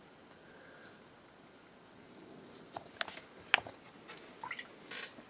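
Light handling of painting gear on a desk, the miniature's holder and brush moved over to a wet palette: a quiet stretch, then a few sharp clicks and taps, the loudest two close together about three seconds in.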